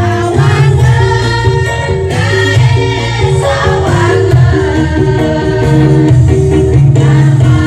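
A group of women singing a cheer song together over backing music with a steady, repeating bass line.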